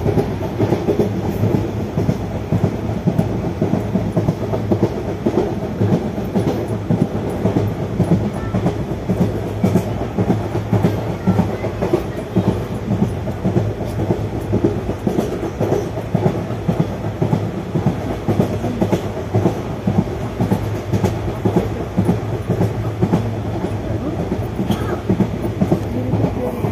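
ICF passenger coach wheels running over the rails at speed: a steady rumble with a dense run of rapid clickety-clack knocks.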